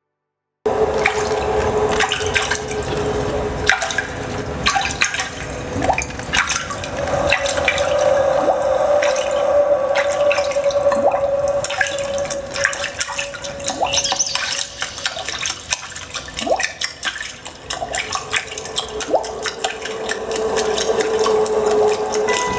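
Water dripping and splashing in many small drops, set against a steady held tone, as part of a musical piece built on the sound of water. The tone steps up in pitch about a third of the way in and drops back down near the end.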